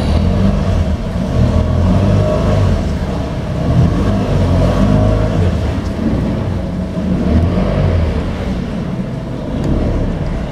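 Tour boat's motor running steadily underway, heard from aboard, a constant low drone.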